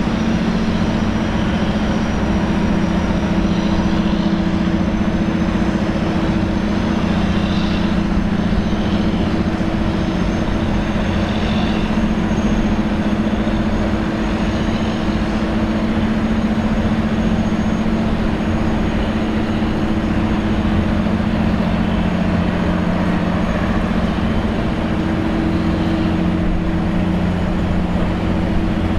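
Jetfoil's gas turbines and waterjets running at speed: a steady low drone with a faint high whine that drifts slightly in pitch.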